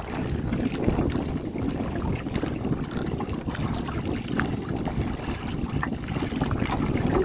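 Strong wind rumbling on the microphone, with water around a boat and a few small knocks.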